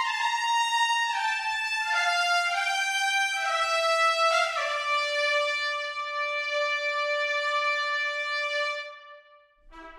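Sampled trumpet section from an orchestral brass library playing long sustained notes: a slow phrase that steps downward through several notes, then settles on one held note that fades out about nine seconds in.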